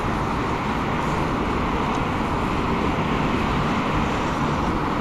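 Steady outdoor road-traffic noise, an even hum with no distinct events.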